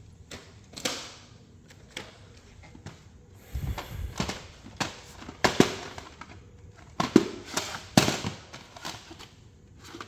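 Plastic VHS cassettes and their cases being handled: irregular sharp clicks and clacks, with a duller low thump about three and a half seconds in.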